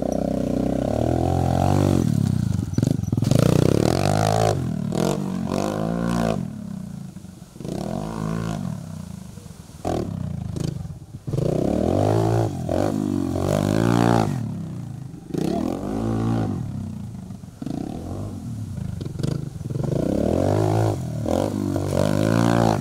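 Pit bike engine revving up and dropping back again and again, rising and falling in pitch every couple of seconds as the rider opens and closes the throttle through the dirt jumps and berms.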